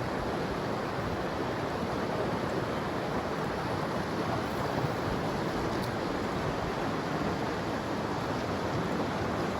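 Steady rushing of a river flowing over rapids.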